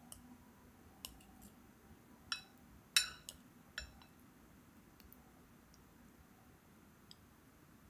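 Chopsticks clicking and clinking against a ceramic bowl as noodles are dipped and swirled in thick broth: scattered light taps, the loudest about three seconds in.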